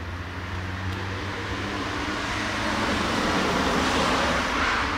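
A passing road vehicle: an even rushing noise that builds to a peak about four seconds in and starts to ease off.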